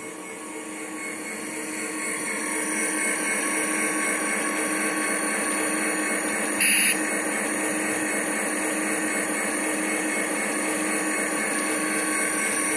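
A model SD40 diesel locomotive and its train running past on the layout: a steady motor hum and running noise that grows louder over the first few seconds as it approaches, then holds. A brief high blip comes about halfway through.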